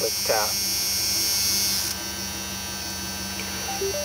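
1996 Dodge Ram 2500's engine idling with its new Thrush welded muffler, heard from inside the cab as a steady drone. A high hiss drops away about two seconds in.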